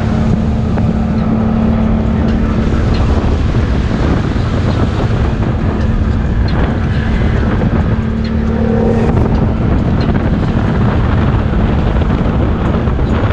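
ATV engine running at a steady pitch, with wind noise on the microphone. The steady engine note drops away about nine seconds in.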